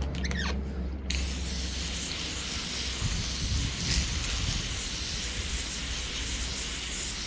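Liquid spray hissing steadily onto a freshly sawn black walnut slab, starting about a second in, over a steady low hum.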